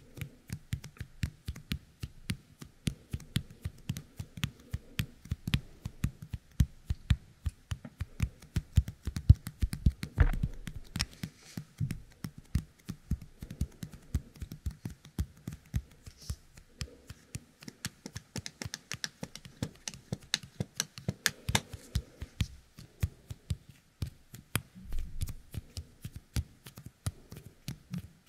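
Fingertips coated with the sticky paste of a youkai kemuri toy being pressed together and pulled apart right at the ear of a binaural dummy-head microphone: a dense, irregular run of tiny sticky clicks and crackles.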